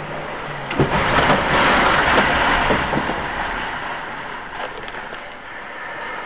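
A strong gust of storm wind, a loud rushing noise, with a clatter of knocks and crashes as corrugated metal sheeting and wooden boards blow down onto the road, heard from inside a car. The noise swells about a second in, peaks for two or three seconds, then eases, with one more knock near the end.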